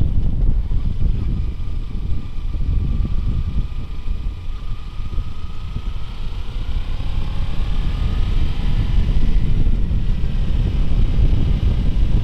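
Sport motorcycle riding at speed: the engine's note runs under heavy wind rumble on the helmet microphone. The engine pitch climbs slowly through the middle as the bike accelerates, with a brief dip in loudness a few seconds in.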